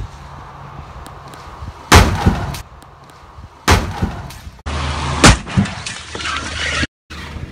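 Hyundai Accent sedan crashing front-first into concrete barriers: three loud impacts about a second and a half apart, the first about two seconds in, over a steady low rumble.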